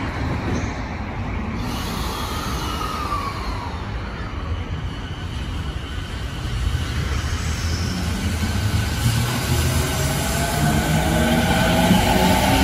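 JR Musashino Line electric train pulling away from the platform over a steady low rumble. From about halfway through, its motor whine climbs in pitch in several parallel tones and grows louder as the train gathers speed.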